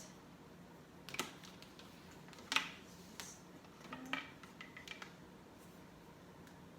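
A few light metallic clicks and clinks from a backpack's hardware being handled, the loudest about two and a half seconds in and a small cluster a little after four seconds.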